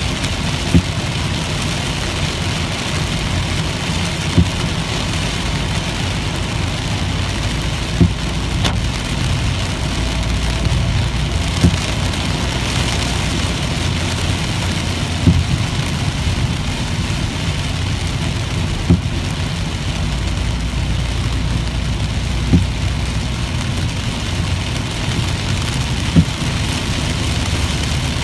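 Inside a car driving in heavy rain: steady road and engine rumble with rain hissing on the windshield. A short thump comes about every three and a half seconds, the intermittent windshield wipers sweeping.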